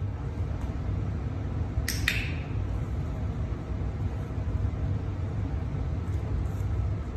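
A dog-training clicker gives one sharp double click about two seconds in, marking the dog on its mat target. Under it runs a steady low rumble of room noise.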